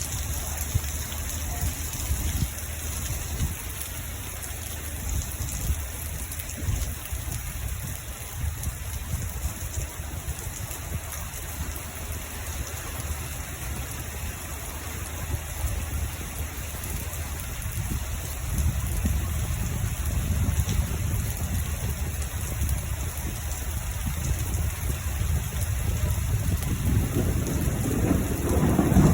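Steady rain with low rolling thunder rumbling underneath. The thunder swells about two-thirds of the way through and peaks in a louder roll near the end.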